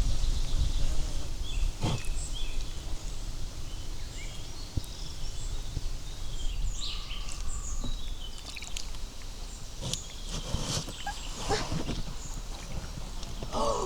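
Small birds chirping over a steady low rumble of outdoor noise, with a few short knocks, one about two seconds in and several near the end.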